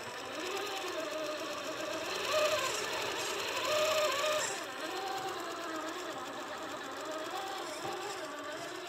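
Axial SCX10 III Jeep Gladiator RC crawler's electric motor and geared drivetrain whining as it crawls up a steep rock slab, the pitch rising and falling with the throttle. It is loudest about two and four seconds in.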